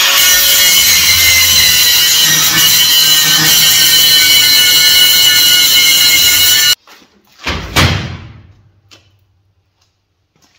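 Angle grinder with a stainless-steel wire brush cleaning welded steel: a loud, harsh, steady whir with whining tones. It stops abruptly about two-thirds of the way through, then a short second burst dies away.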